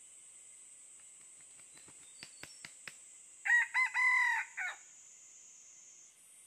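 Red junglefowl rooster crowing once in four clipped parts (two short notes, a longer one, then a short final note). It is preceded by a few sharp clicks.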